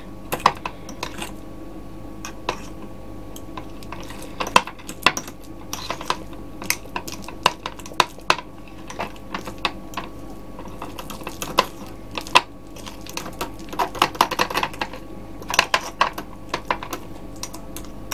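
A fork clinking and scraping against a bowl in irregular quick taps, mashing butter together with garlic puree and parsley.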